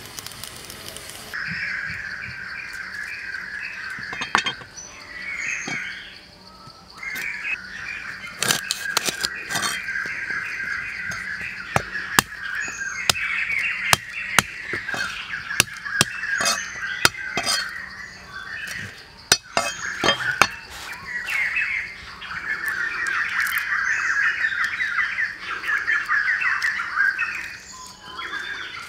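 Birds chirping steadily in the background after a short opening hiss from the pot boiling over the fire, with scattered sharp clicks and knocks as garlic cloves are peeled and broken beside a cleaver on a wooden chopping board.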